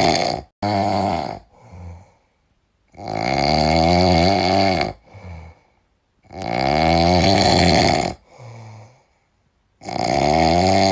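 Loud, deep snoring: long snores about every three seconds, their pitch rising and falling, each followed by a shorter, fainter snort.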